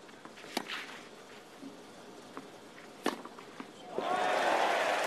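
Tennis ball struck by rackets in a baseline rally on clay: two sharp hits about two and a half seconds apart, with lighter ticks between. About four seconds in, the stadium crowd breaks into cheering and applause, the loudest sound here.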